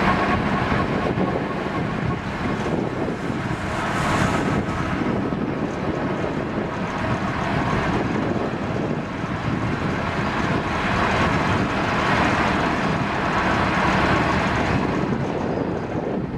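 Elephant grass harvester running steadily as it cuts and chops the stalks, a dense continuous mechanical noise.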